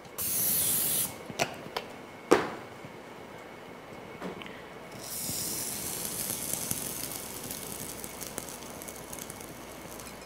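PAM cooking spray hissing from an aerosol can for about a second, followed by a few knocks. From about five seconds in, a plastic bread bag rustles and crinkles.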